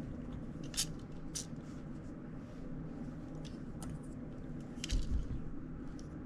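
A small screwdriver working at the tiny screws of a hollow plastic wind-up toy: a few faint clicks and scrapes and a small knock about five seconds in, over a steady low hum. The screws will not turn: stripped or glued in.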